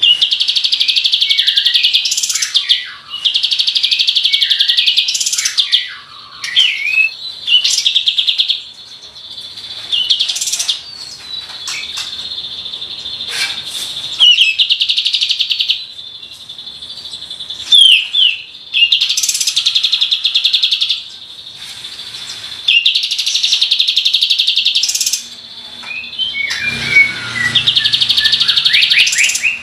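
Kapas tembak bulbul singing. It repeats fast rattling trills of one to two seconds each, with short chirps between them.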